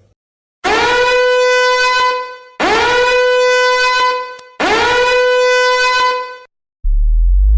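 A horn sounds three long identical blasts, each about two seconds, scooping up in pitch into a steady note, with short gaps between them. A deep low rumble starts near the end.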